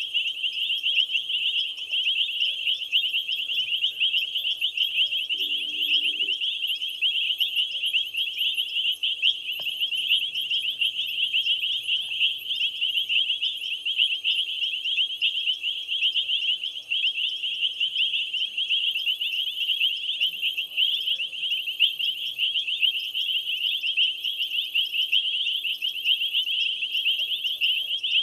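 Dense, shrill night chorus of calling insects: a steady trill of rapid overlapping pulses. About two-thirds of the way in, a higher, fainter pulsed call joins, beating about once a second.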